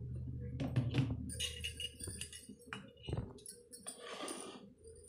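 Brass chakli press and steel plate being handled: a series of light metal clinks and knocks, with a short rustle near the end. A low hum fades out about a second in.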